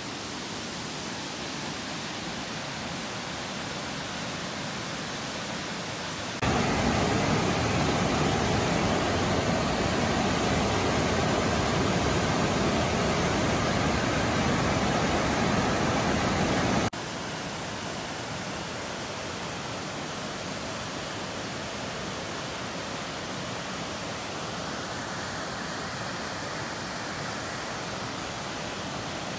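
Inglis Falls, a waterfall, giving a steady rush of falling water. The sound jumps louder about six seconds in and drops back abruptly about ten seconds later.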